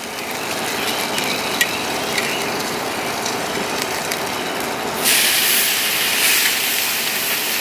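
Thick-cut ribeye steak sizzling on the hot grate of a charcoal kettle grill. About five seconds in the steak is set back down on the grate at a new angle for crosshatch grill marks, and the sizzle jumps louder and brighter.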